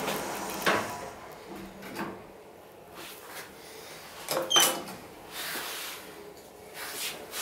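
KONE elevator car's floor button pressed: a sharp click with a brief high tone about four and a half seconds in, as the button registers the call. Quieter clicks and knocks come before and after it.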